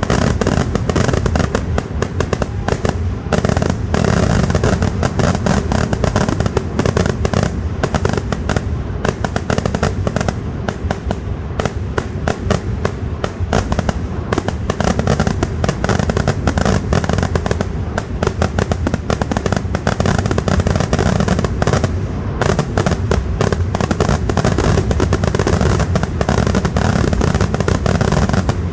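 Kerala temple-festival fireworks (vedikettu): a dense, unbroken barrage of rapid firecracker and shell bangs, too fast to count, with heavy low booms underneath.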